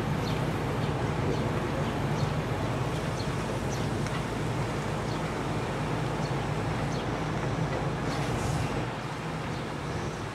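Steady low engine drone under a broad rushing noise, easing off about nine seconds in.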